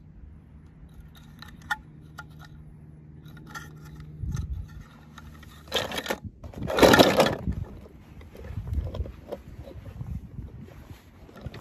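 Small hard objects scraping and clinking: toy cars and stones being moved by hand, with a few low thumps and one louder rushing scrape about seven seconds in.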